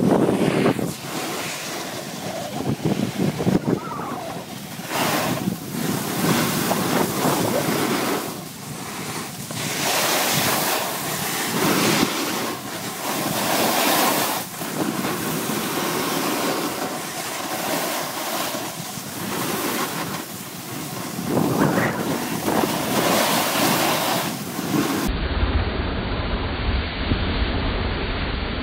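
Wind rushing over a moving camera's microphone, with snowboard edges scraping and hissing over packed snow, swelling and fading with each turn. About 25 s in, the sound becomes a muffled, deeper rumble.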